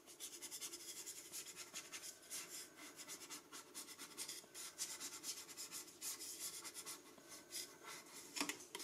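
Edge of a plastic loyalty card scraping over a thin screen protector film on a kitchen appliance's touchscreen in many short repeated strokes, pressing the film down onto the glass.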